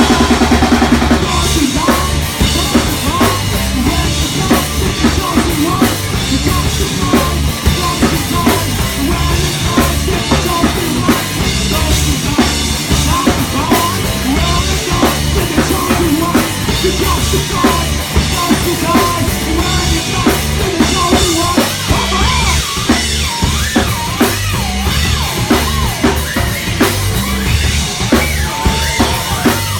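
Live rock band playing a loud instrumental section: drum kit and bass driving a steady beat under distorted electric guitar, with a lead guitar line bending notes over it.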